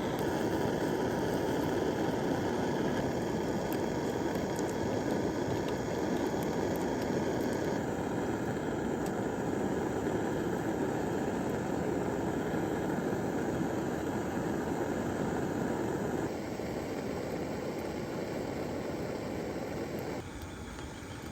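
A steady rushing noise, with no clear rhythm or tone, that drops abruptly in level twice in the second half.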